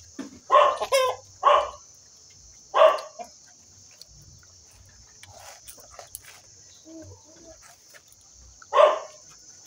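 A dog barking in short single barks: three in quick succession at the start, another about three seconds in, and one more near the end.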